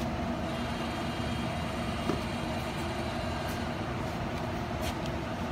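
Steady low rumble with a faint hum, from the cooker's burner running under a large steel pan, with one light knock about two seconds in.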